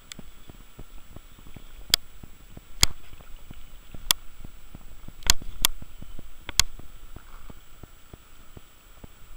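Fly reel's click drag ticking rapidly, several times a second, as line is worked on a hooked fish. A handful of louder, sharper clicks stand out.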